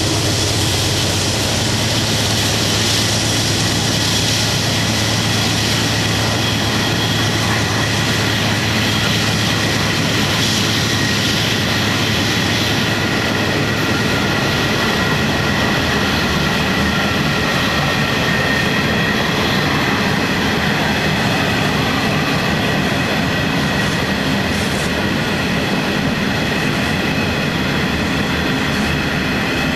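Heavy iron-ore train passing close by. The diesel locomotives' low engine drone fades over the first dozen seconds, leaving a long string of ore wagons rolling by with a steady loud rumble and a thin high wheel squeal on the curve.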